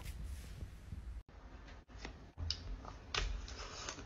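Soft scattered mouth clicks and smacks of someone biting and chewing a soft chocolate mousse cake, a few in the second half, after a faint quiet stretch.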